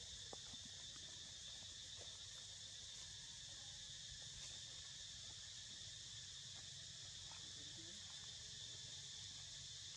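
Faint, steady drone of insects, an even high-pitched hum that does not change, with a few soft scattered ticks.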